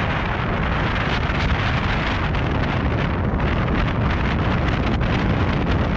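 Steady, loud roar inside the cabin of a Boeing 737-800, from its CFM56-7B engines and the air rushing past the fuselage.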